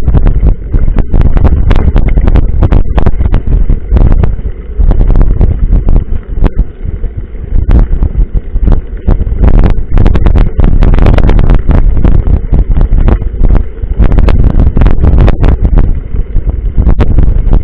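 Mountain bike ridden over rough trail: loud wind buffeting on the microphone with frequent sharp knocks and rattles from the bike.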